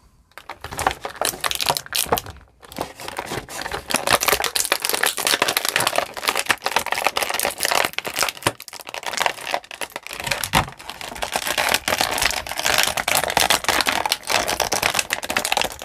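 Plastic action-figure packaging crinkling as it is handled and pulled apart: a dense run of small crackles, with a couple of short pauses.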